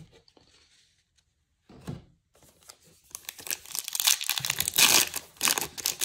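Foil wrapper of a baseball card pack being torn open and crinkled. A dense crackle of tearing and rustling sets in about two and a half seconds in and grows loud.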